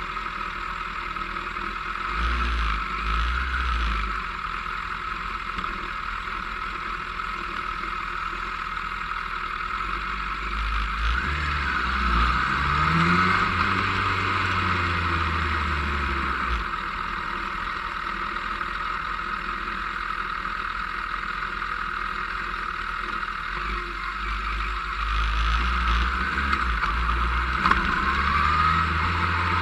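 Motorcycle riding at road speed, with steady wind rush over the camera microphone and the engine note coming and going; about a third of the way in the engine climbs in pitch as it accelerates.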